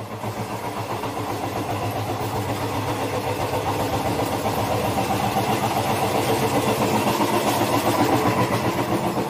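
Passenger train running noise heard from the gangway between carriages: a steady rumble with a low hum, growing a little louder over the first few seconds and then holding.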